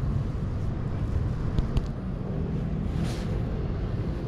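Steady low rumble on the microphone of a mountain bike on the move, with a few faint clicks about a second and a half in.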